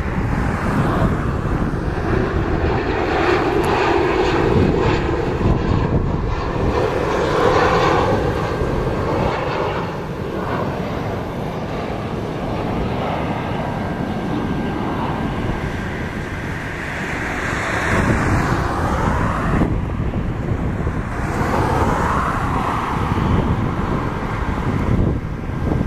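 Boeing 737-800 on final approach with gear down, its CFM56 jet engines droning steadily as it passes and flies away. The noise carries slow sweeping whines that rise and fall in pitch as the airliner goes by.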